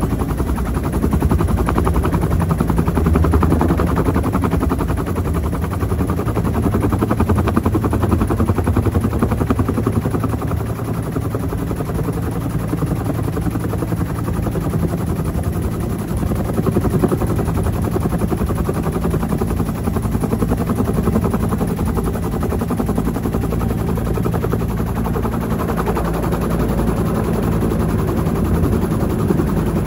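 Bell UH-1 Huey helicopter's two-bladed main rotor chopping in a rapid, steady beat over a steady engine drone, heard from on board.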